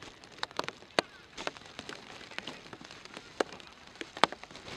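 Rain: irregular sharp drop taps over a light steady patter, the loudest tap about a second in and another near the end.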